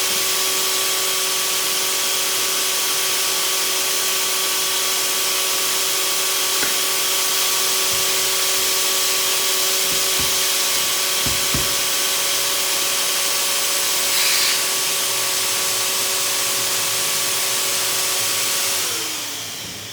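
Bravo 2000 electric inflation pump running steadily, a strong rush of air with a steady whine, as it pushes air through a Y connector and two hoses to top off an inflatable. Near the end the whine falls in pitch and the sound dies away as the pump winds down.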